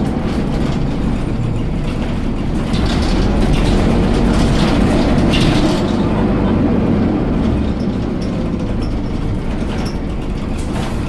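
Dennis Dart SLF single-deck bus running, a steady low engine and road drone with scattered rattling clicks about three to six seconds in.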